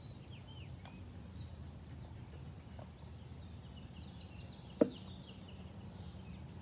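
Steady high-pitched insect trilling, with a few short falling bird chirps in the first second and one sharp tap about five seconds in.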